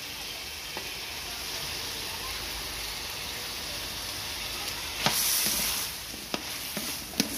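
Chicken with diced potatoes, carrots and bell peppers sizzling in a hot metal pan while a spatula stirs them. The sizzle surges louder for about a second, five seconds in, and the spatula knocks sharply against the pan a few times near the end.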